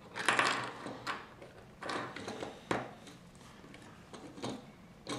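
Lego plastic pieces and minifigures being handled and pressed onto a model: a string of short clicks and knocks about a second apart, with a longer scraping sound near the start.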